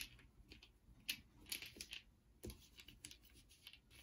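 Faint, irregular clicks and taps of small cardboard wargame counters (chits) being handled and mixed for a draw.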